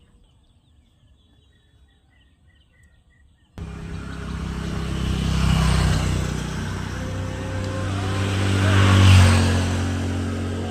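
Faint bird chirps, then from a sudden change about a third of the way in, a motor vehicle's engine running loud and close, swelling twice and loudest near the end.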